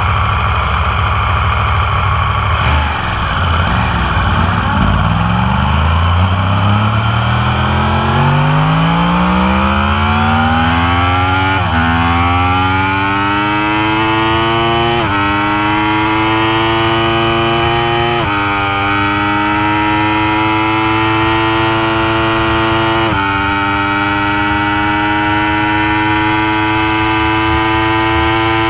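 Yamaha R1M's crossplane inline-four engine under full throttle, accelerating hard from a standstill to top speed. The pitch climbs through a long first gear, then drops at each of four quick upshifts and climbs again, more slowly in each higher gear.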